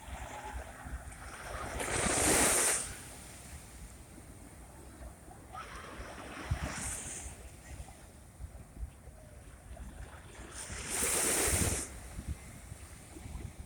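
Sea waves breaking on the shore, swelling and falling back three times, a few seconds apart, with a steady low rumble of wind on the microphone underneath.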